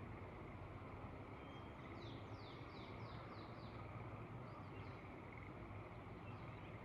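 Faint outdoor ambience with a steady background hiss. About two seconds in, a songbird sings a quick run of about six descending whistled notes, and a few shorter notes follow near the end.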